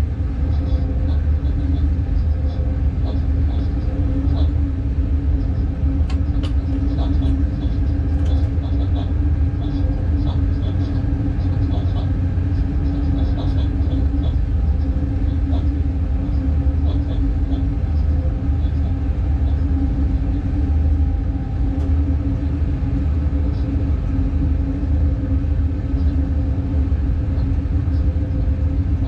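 Cab noise of a class 186 Bombardier TRAXX electric locomotive under way: a steady low rumble with a constant hum, and light ticks and squeaks scattered over it.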